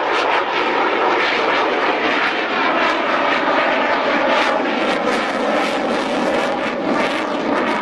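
Saab JAS 39 Gripen fighter flying by, its single jet engine giving a loud, steady rush of noise with a rough crackle all through.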